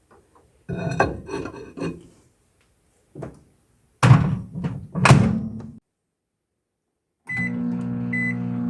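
Mug and utensil clatter, then two loud thunks. About seven seconds in, short keypad beeps and a microwave oven starting its steady hum, as the mug cake goes in to cook.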